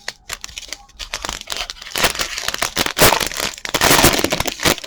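Plastic wrapper of a Donruss football card pack crinkling loudly as it is handled, building from about a second in and stopping abruptly near the end.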